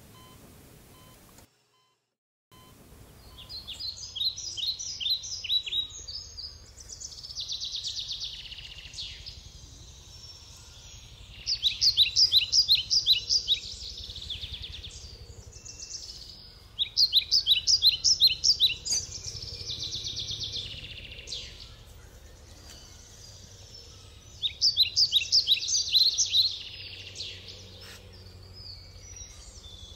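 Songbirds singing in a woodland: phrases of rapid, high, repeated notes every few seconds, over a steady low rumble of outdoor background noise.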